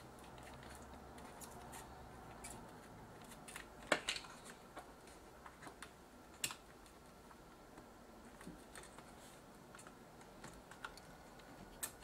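Faint, scattered small clicks and taps of a soldering iron tip and desoldering braid working solder joints on a circuit board, with a sharper click about four seconds in.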